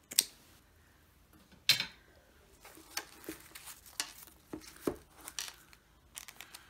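Scissors snipping through a ribbon tie: two sharp snips about a second and a half apart. After them come light rustling and small clicks as the ribbon is pulled off the wrapped package and the tag is handled.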